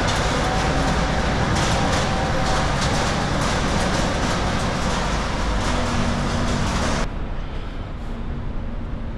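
Road-train truck running and rolling slowly over steel grating, heard from inside the cab: dense engine and rolling noise with scattered rattles and clanks. About seven seconds in, it cuts abruptly to quieter, steady cab and engine noise out in the open.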